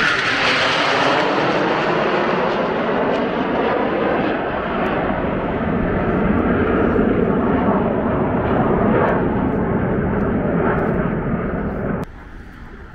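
Jet noise of a SoloTürk F-16 fighter in its display: a loud, rushing roar with a slowly falling pitch. About a second before the end it cuts down suddenly to a much quieter rumble.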